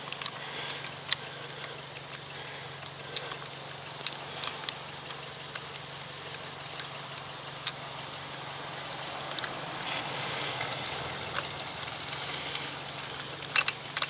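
Scattered light clicks and ticks of a socket and extension as a spark plug is unscrewed from a 2017 Hyundai Elantra's 2.0 engine, over a steady low hum.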